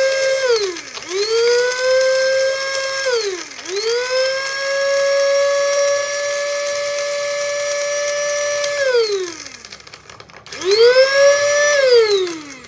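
Small 200 W electric spice grinder motor and blade, pulsed by its push button while grinding chopped ginger and garlic into paste. A high whine climbs as the motor spins up, holds steady, then sinks as the button is let go: four runs, the longest about five seconds.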